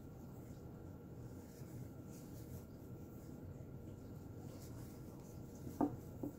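Faint, soft rubbing of worsted yarn drawn over an aluminium crochet hook as single crochet stitches are worked, over a low steady hiss, with a brief click near the end.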